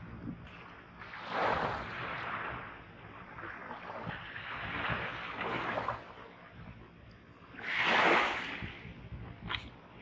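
Small sea waves washing up onto a sandy shore and draining back, swelling in three surges, the loudest about eight seconds in, with a few light clicks near the end.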